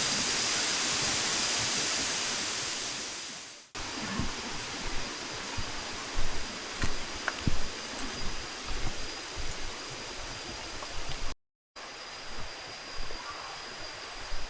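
Waterfall water rushing: a loud, steady hiss that fades out after about three and a half seconds. After a cut, a rougher rush of water follows with irregular low bumps. A brief silent break comes near the end, and a faint steady high tone runs throughout.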